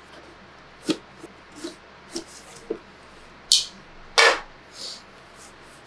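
Handling noises: a string of light clicks and taps, then two short rasping sweeps about three and a half and four seconds in, the second the loudest.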